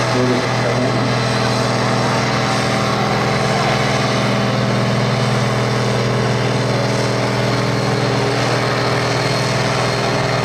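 Large tractor's diesel engine idling steadily, an even hum that holds one pitch with no revving.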